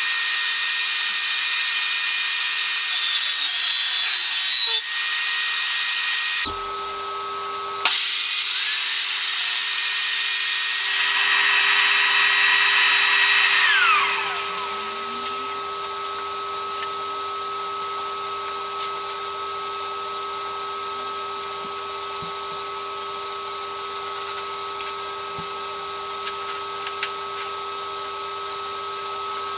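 Electric woodworking power tool with a high-pitched whine, running steadily. It stops abruptly about six seconds in and starts again a second and a half later. About fourteen seconds in it spins down with a falling whine, leaving a quieter steady hum.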